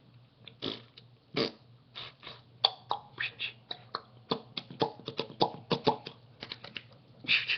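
A man making mouth noises beatbox-style: a quick, irregular run of short clicks, pops and puffs of breath, getting busier after the first couple of seconds.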